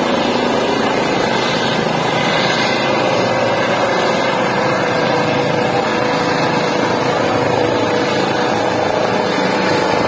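Eurocopter EC135 helicopter with a ducted Fenestron tail rotor, its rotors and turbines running steadily as it climbs away overhead after take-off.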